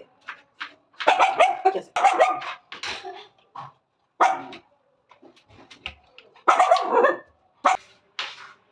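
A dog barking repeatedly in short, irregular barks and yips, several in quick succession.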